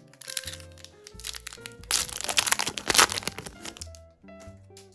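A Yu-Gi-Oh booster pack wrapper being torn open and crinkled, a dense crackling rustle loudest from about two to three seconds in, over background music with held notes.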